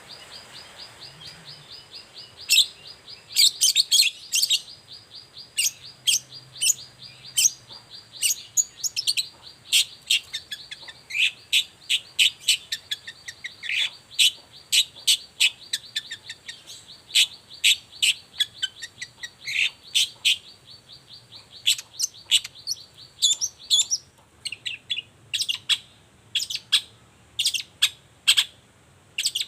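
Long-tailed shrike (cendet) singing in the lively 'gacor' manner: sharp, loud notes come a few times a second over a fast, steady trill, and the trill stops about four-fifths of the way through.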